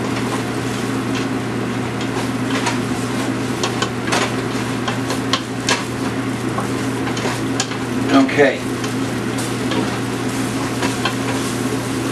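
Butter-and-flour roux sizzling in a pan while a utensil stirs it, with scattered clicks and scrapes against the pan; the loudest is a pair of scrapes about eight seconds in. The flour is being browned for a zapraška, over a steady low hum.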